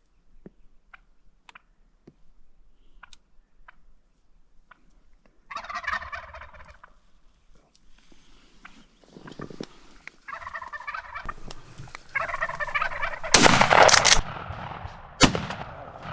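Wild turkey gobbling, loud and close, three times from about five seconds in. Near the end come a loud burst of noise lasting about a second and then a single sharp crack.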